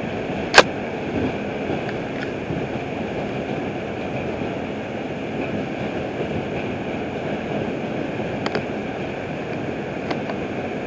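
R142 subway train running between stations, a steady rushing noise of wheels on rail. A single sharp click about half a second in, and a fainter one later.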